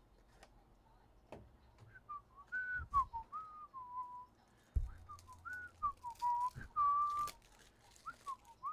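A person whistling a meandering tune, a string of single notes that starts about two seconds in and keeps going, with a few light knocks and a dull thump near the middle.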